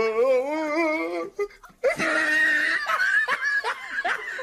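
Loud, high-pitched laughter with a wavering pitch, breaking into short giggling pulses after a brief pause.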